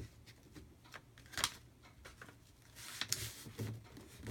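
A sheet of paper being folded and creased by hand: a few sharp crinkles and rustles, the loudest about a second and a half in.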